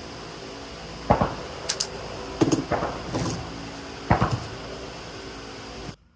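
Three dull knocks and a couple of sharp clicks over a steady low hum, which cuts off suddenly near the end.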